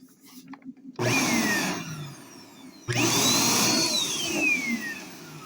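Dirt Devil Endura Max upright vacuum cleaner switched on twice in short bursts: each time the motor starts with a rush of air and whine, runs briefly, then winds down with a falling whine after switch-off. The second run is longer, its whine rising to a steady high pitch before sliding down.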